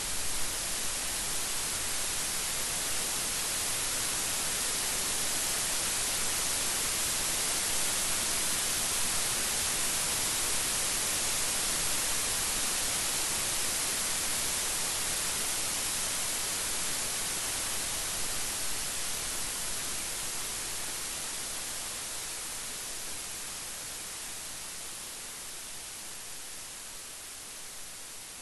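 Steady rain falling: a dense, even hiss that fades gradually over the last third.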